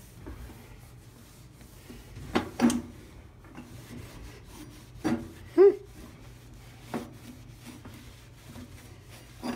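Microfiber towel wiping a black stovetop: soft rubbing broken by a few light knocks, and one short squeak about five and a half seconds in, the loudest sound.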